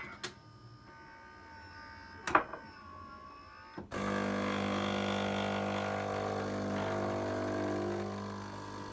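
A glass clinks on the counter about two seconds in. About four seconds in, the water pump of a Philips EP2220 automatic espresso machine starts suddenly and runs with a steady hum. The machine is flushing a little hot water through its coffee spout to heat itself up after being switched on.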